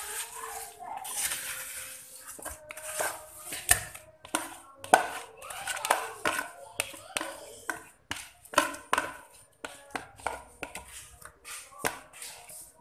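Plastic bowls knocking and scraping, with the wet, soft sounds of half-frozen ice cream mixture being pushed out of one plastic bowl into another by hand. The clunks and scrapes come irregularly throughout.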